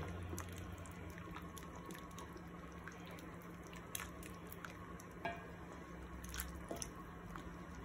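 Wooden spoon stirring a thick pork blood stew (dinuguan) in a stainless steel pan: soft wet squelches and scattered small clicks and plops as the sauce is cooked down to thicken.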